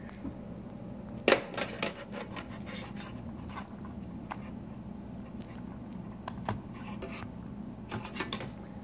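Small plastic clicks and scrapes of an IDC26 ribbon-cable connector being handled and pressed onto the 26-pin header of a Mesa 5i25 PCI card. A sharper click comes about a second and a half in, and a quick run of clicks near the end, over a steady low hum.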